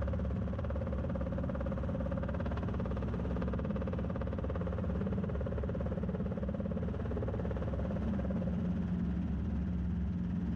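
Robinson R22 helicopter's four-cylinder piston engine and rotors running in a steady drone as the helicopter hovers and settles toward touchdown.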